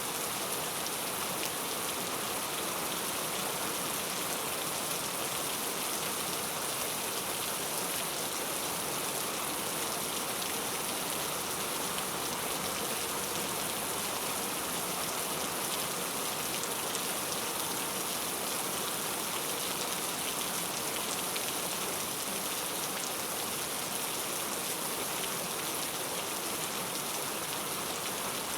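Heavy, steady rainfall with a dense, even hiss of drops and no distinct single hits, from a library track of heavy rain.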